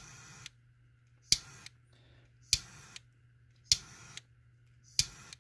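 A handheld lighter being struck five times, about every second and a quarter: each time a sharp click, then about half a second of hissing gas flame before it is let go, used to shrink heat-shrink tubing over a soldered wire joint.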